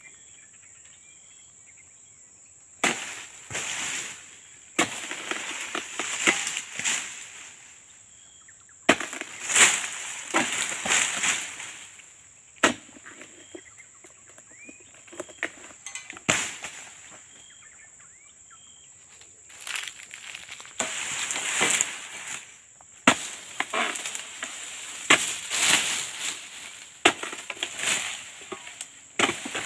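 Pole-mounted harvesting sickle hacking and sawing through oil palm frond stalks and fruit-bunch stems high in the palm, in repeated bursts of scraping, cracking and rustling with short quiet gaps between. A steady high insect whine runs underneath.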